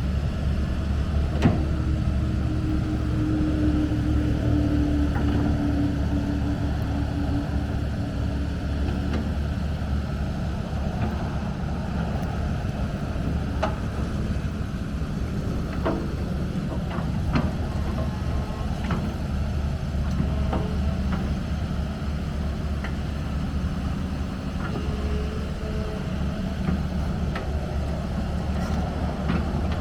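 Komatsu PC210LC-10 hydraulic excavator running: its diesel engine drones steadily, with a whine held for several seconds near the start and scattered knocks and clanks from the machine working.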